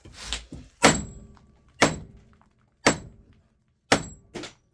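Repeated hammer blows on a small scrap transformer, about one strike a second, each a sharp metal bang with a brief high ring, as the windings and core are knocked apart for the copper.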